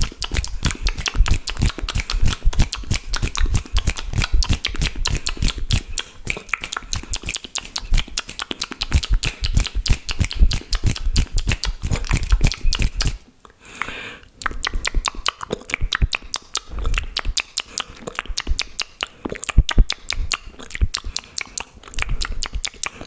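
Fast, aggressive wet mouth sounds: rapid tongue clicks and lip smacks, with a brief pause about thirteen seconds in.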